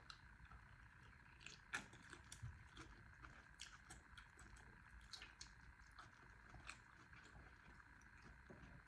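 Faint close-up eating sounds: quiet chewing with scattered small mouth and utensil clicks, one sharper click about two seconds in, over a low steady hum.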